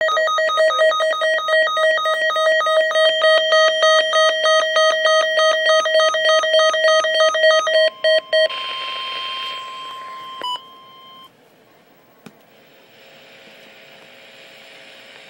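Weather-radio emergency alert test signal: a loud, rapidly pulsing electronic beeping tone for about eight seconds. It is followed by a steady higher tone over radio hiss that cuts off around eleven seconds, leaving faint static.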